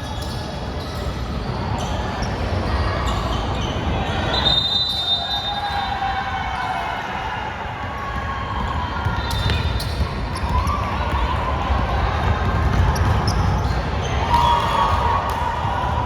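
Basketball game sounds: the ball thudding on the court now and then, with players' voices calling out. A short high tone comes about four seconds in.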